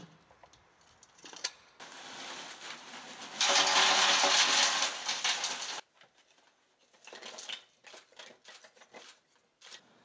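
A rushing, rattling clatter of loose material shaken in a metal bucket at a metal dumpster. It swells about two seconds in, is loudest in the middle and cuts off abruptly near six seconds in. Scattered light clicks and scrapes follow.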